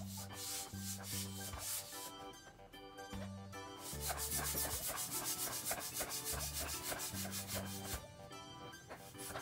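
Hand-held plastic balloon pump worked in repeated strokes into a vinyl beach ball: air rushing and the piston rubbing in its barrel, busiest from about four seconds in. Background music plays underneath.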